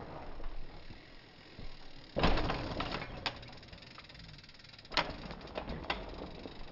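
Mountain bike knocking and rattling over dirt and rock as it lands: a loud rough impact about two seconds in, then a few sharp clacks of tyres and frame on rock about three, five and six seconds in.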